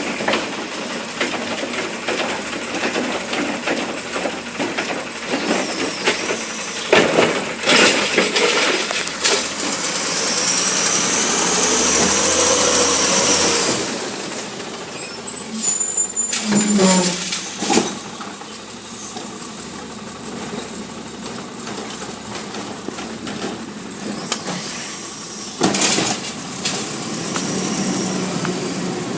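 Recycling garbage truck working a collection. Its engine runs throughout, and from about ten to fourteen seconds in it grows louder with a whine that rises and falls. A brief high squeal comes about fifteen seconds in, and a few sharp clanks sound through the rest.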